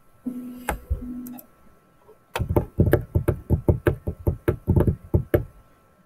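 A short low hum with a single sharp click, then a rapid run of about fifteen sharp knocks at roughly five a second, lasting about three seconds.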